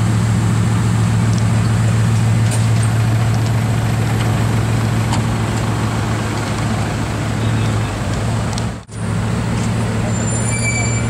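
Bugatti Veyron's 8.0-litre quad-turbo W16 engine running steadily at idle, a deep even hum. The sound drops out for an instant about nine seconds in.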